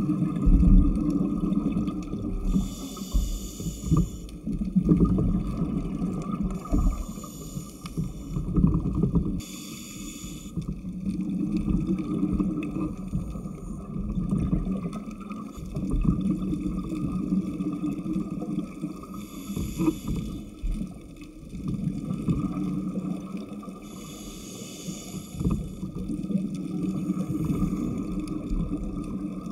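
Scuba diver breathing through a regulator underwater: a short hissing inhale every few seconds, with the exhaled bubbles rumbling and gurgling in between. Under it runs a steady hum from the dive scooter.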